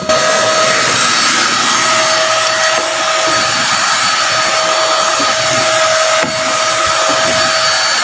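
Deerma DX700 600-watt 2-in-1 handheld vacuum cleaner running steadily while its floor nozzle is pushed over a hardwood floor: a loud rush of air with a steady whine from the motor.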